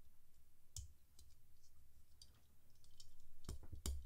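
Small clicks and taps of a die-cast toy car being handled and turned over in the fingers. Near the end come a few louder clicks and soft knocks.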